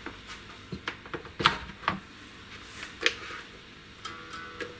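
Scattered sharp clicks and knocks of handling: a guitar cable being plugged into a Peavey Envoy 110 combo amp's input jack and the guitar being handled. The loudest knocks come about one and a half and three seconds in.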